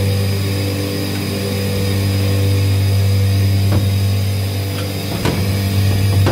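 CNC machining centre running idle: a steady low hum with a thin high whine above it, and a few light clicks around the middle and near the end.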